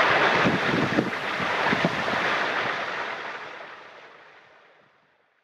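Spring water running and splashing at a holy well, a steady rushing sound that fades away over the last two or three seconds.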